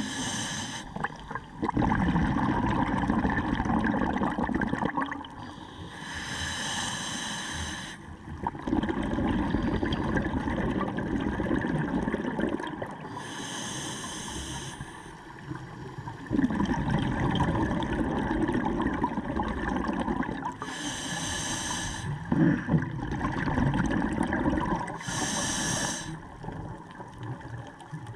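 Scuba diver breathing through a regulator, heard underwater: a short hiss on each inhalation alternates with a longer rushing gurgle of exhaust bubbles. Five breaths come about every five to seven seconds.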